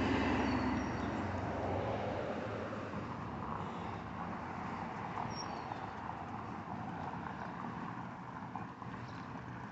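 Outdoor street noise: a vehicle going by, loudest at the start and slowly fading.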